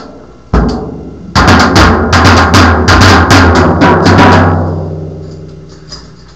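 Drum kit being played: one low drum hit, then a fast run of about fifteen strikes, roughly five a second, over three seconds, with a low drum ring that fades away after the last hit.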